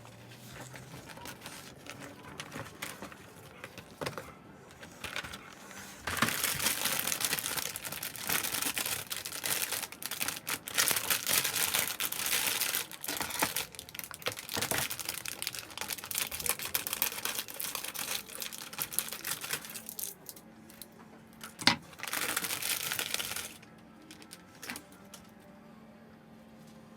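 Plastic packaging crinkling and rustling in long stretches as a plastic model kit's bagged parts are handled. Faint music plays underneath, and there is a sharp click about three quarters of the way through.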